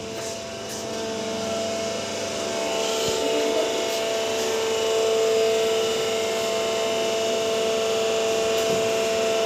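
Steady electric hum of a plate-pressing machine's motor, growing louder over the first few seconds and then holding level.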